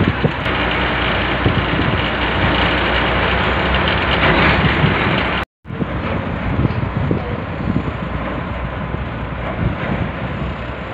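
Steady loud drone of a crew boat's engines running alongside a ship. The sound drops out briefly about five and a half seconds in, then the drone goes on.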